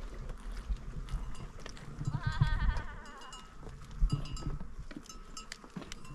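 A single wavering bleat from small livestock, starting about two seconds in and lasting about a second.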